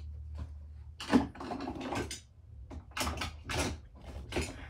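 Hard plastic blister packaging of a servo winch being handled, giving several short crinkles and taps over a steady low hum.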